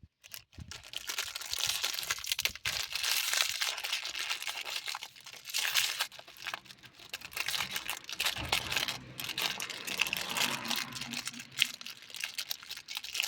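Packaging crinkling and rustling in irregular crackles as parts of a spot welder kit are unwrapped by hand.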